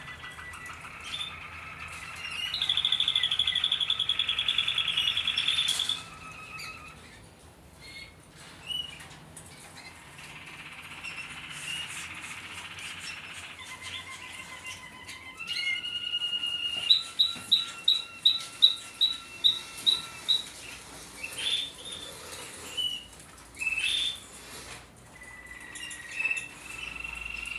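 Malinois (Waterslager) song canaries singing in their cages: trilled song phrases, a loud fast trill a few seconds in, and a run of loud repeated notes, about three a second, past the middle.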